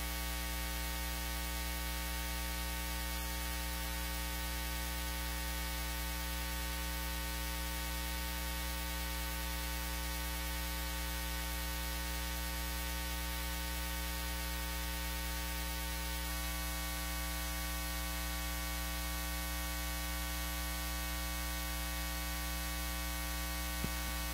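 Steady electrical mains hum, a stack of even overtones over a constant hiss, with one small click near the end.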